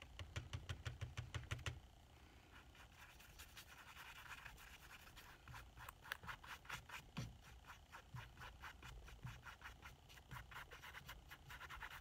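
Paintbrush scrubbing watercolor across a canvas: faint, quick scratchy strokes, about eight a second, louder for the first two seconds and then softer and less regular.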